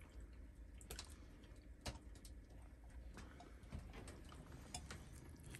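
Near silence with faint, irregular clicks and ticks scattered through it, over a low steady hum.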